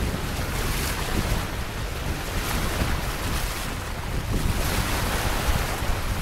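Wind buffeting the microphone, with water rushing and splashing along the hull of a sailboat under way. The wash swells and fades every second or two.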